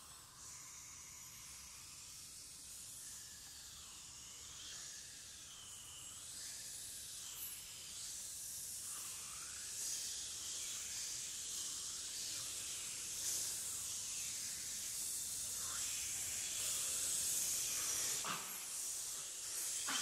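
Mixed a cappella choir making breathy hissing sounds with high sliding pitch glides above them. It grows gradually louder.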